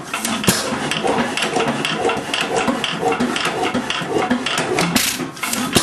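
Old Root & Vandervoort hoist engine running with a regular mechanical clatter of about three beats a second, with sharper knocks about half a second in and again near the end. It is running again after many idle years.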